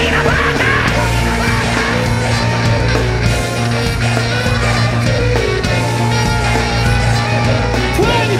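Live rock band playing loud, with electric guitar over heavy, sustained bass notes.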